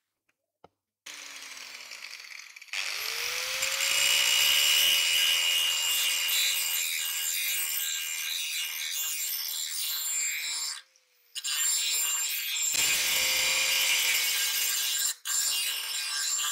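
Angle grinder with a flap disc grinding the bevel into a car-spring steel knife blade: a steady motor whine under a harsh grinding hiss. The grinding starts about three seconds in and breaks off briefly twice in the later part.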